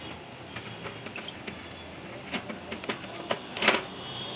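Hands handling the plastic body of a new Epson L3110 printer and pulling off its blue packing tape: scattered light clicks and taps, with a louder short rasp about three and a half seconds in.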